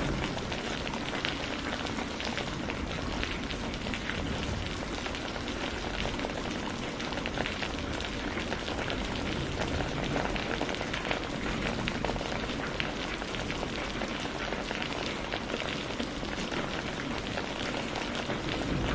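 Steady rain falling, a dense pattering of many drops at an even level.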